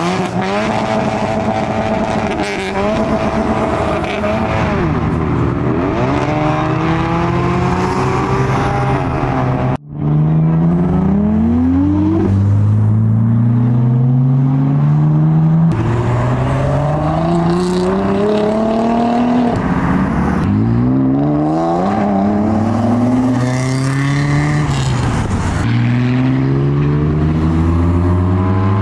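Modified Japanese cars accelerating away one after another, each engine's note climbing as it revs up and dropping back at gear changes. There is a brief sudden dip in the sound about ten seconds in.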